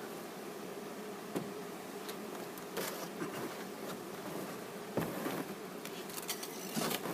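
Italian honey bees buzzing steadily, with a few light clicks and knocks of handling over it.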